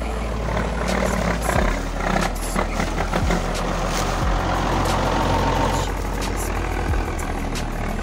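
REO 6x6 truck's engine running with a steady low rumble, growing rougher in the middle and easing back a little after about six seconds, with a few short knocks.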